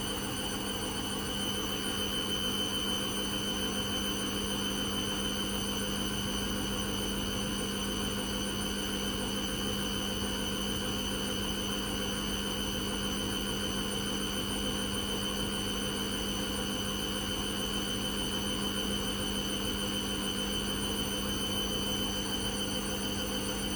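Hoover Custom Vision washing machine running steadily, a constant low hum with a thin high whine over it and no change in speed or level.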